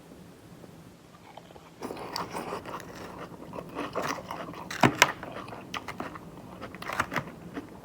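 Close-up chewing and crunching of a mouthful of crispy chicken salad, starting about two seconds in, with sharp crunches about five and seven seconds in.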